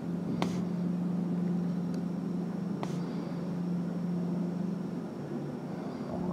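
Demolition excavator's diesel engine running with a steady hum, with two sharp knocks from the wreckage being worked, about half a second in and again near three seconds.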